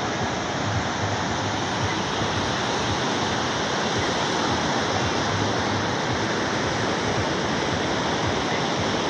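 Ocean surf breaking on a sandy beach: a steady, unbroken wash of noise.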